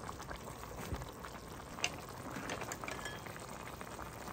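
Lemongrass chicken hotpot broth simmering in a metal pot: a steady soft bubbling with scattered small pops.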